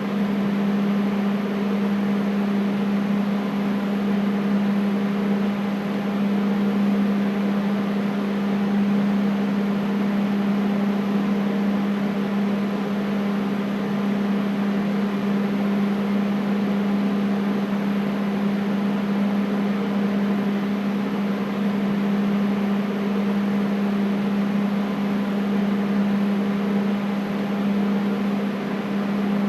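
Air conditioner running steadily: a low, even hum with a constant rush of air over it.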